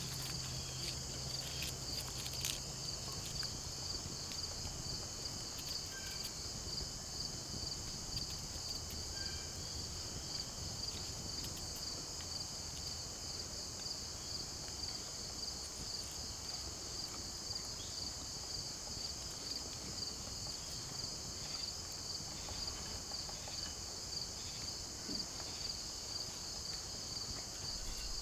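Steady high-pitched insect chorus of crickets, a pulsing trill over a continuous hiss, with a few faint clicks in the first few seconds.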